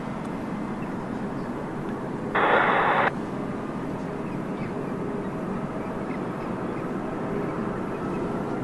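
Jet airliner engines running at the airport: a steady rumble with a faint high whine in the second half. A brief burst from the air-traffic-control radio cuts in about two and a half seconds in.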